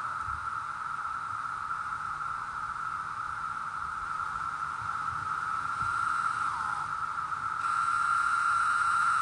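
Chorus of Brood XIV periodical cicadas: a steady, high-pitched drone. Individual calls slur down in pitch about six and a half seconds in and again at the very end, and the chorus swells louder in the last second or two.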